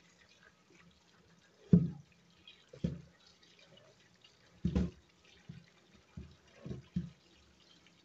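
Cold tap water running over parboiled potato fries in a metal colander in a sink, a faint steady splashing. Several dull knocks stand out over it, the loudest about two seconds in and near the middle.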